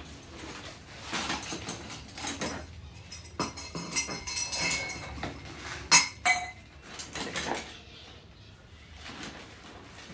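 Someone rummaging through metal parts, with irregular clinks and clattering as pieces knock together and a sharp knock about six seconds in.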